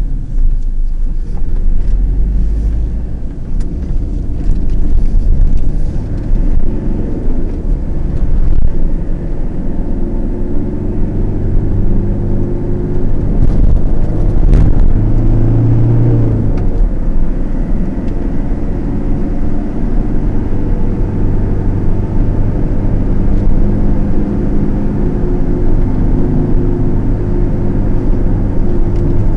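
Car engine and road rumble heard from inside the cabin while driving, the engine note shifting in pitch several times as the car speeds up and slows.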